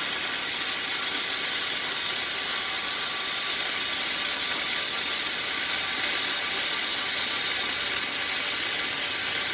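Oxy-fuel cutting torch on a homemade cutting machine burning through steel, giving an even, steady hiss.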